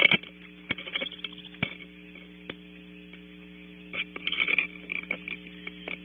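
Steady electrical hum from the wildlife camera's microphone, with scattered sharp clicks and a short cluster of scratchy noise about four seconds in.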